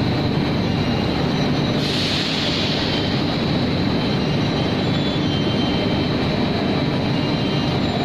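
Cold pad batching dyeing range running in a textile mill: a steady, loud mechanical rumble and hiss of rollers and drives carrying fabric, with a brief rise in the hiss about two seconds in.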